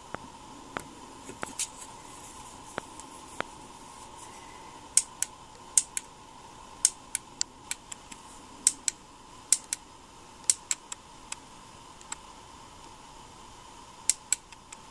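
Small sharp plastic clicks and taps from handling a battery-powered clip-on LED selfie ring light, likely its mode button and plastic housing. The clicks come irregularly, a few at first, then a dense run from about five to ten seconds in and two more near the end.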